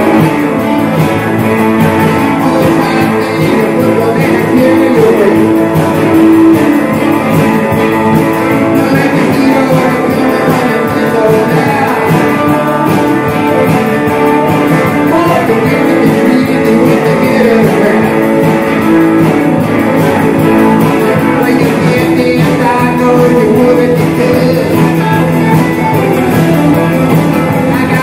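Rock and roll music with electric guitar, singing and a steady beat, played loud and without a break.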